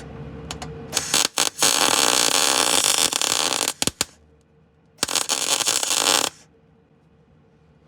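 MIG welder plug welding steel body panel, a crackling hiss in short stabs and then two bursts of a second or two each. The weld is going badly, which the welder calls "welding like shit."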